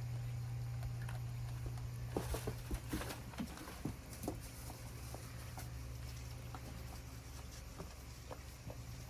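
Goats moving about: a cluster of light taps and clicks, like hooves on a hard floor, about two to four and a half seconds in, with a few scattered ticks later, over a steady low hum.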